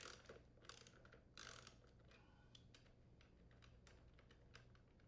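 Faint, irregular clicks and short scrapes of a socket wrench and metal parts being handled as the rear wheel's mounting nut is unthreaded and the wheel slid off the axle.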